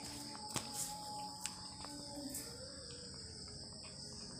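Crickets chirping in a steady, continuous high trill, with a few faint soft clicks from a cat chewing vegetables off a plate.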